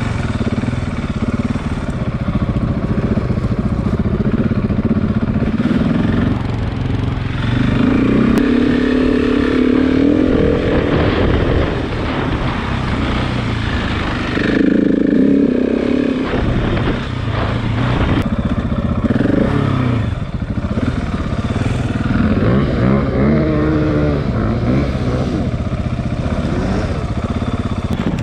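KTM 690's single-cylinder engine running under load off-road, its pitch rising and falling several times as the throttle is opened and closed.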